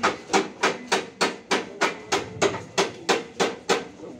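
A fast, even run of hard knocks, about three a second, each with a short ring, stopping shortly before the end.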